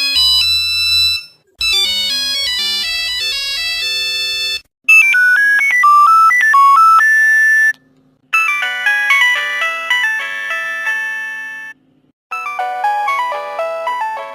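Nokia mobile phone ringtones played one after another: short electronic melodies of a few seconds each, split by brief silences. The first ones are bright, beeping tunes; the later ones have notes that ring and fade like an electric piano.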